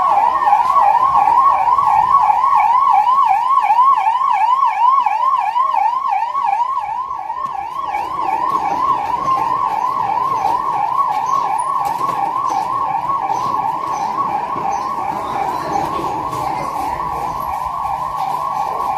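Electronic emergency siren yelping fast, its pitch sweeping up and down about three times a second. After about eight seconds it changes to a steadier wavering tone over a background rumble.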